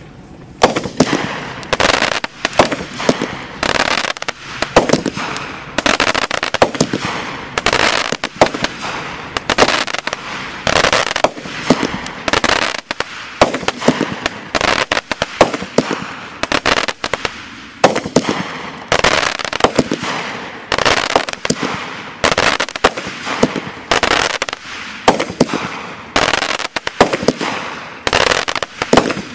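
Road Show 200-gram consumer fireworks cake firing a continuous string of shots, loud sharp bangs coming about one to two a second with a hissing crackle between them.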